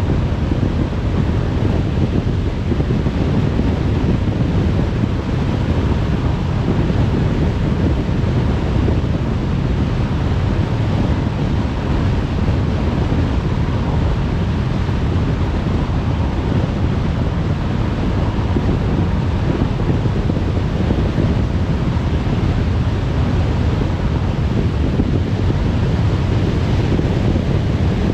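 Steady road noise of a car driving on a motorway: a constant low rumble of tyres and wind with no changes.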